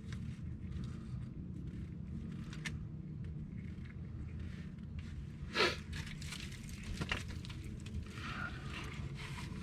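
Faint handling noises as the clutch's main throwout bearing assembly and parts are moved about: light rustling and clicks, with one sharper knock about five and a half seconds in, over a steady low hum.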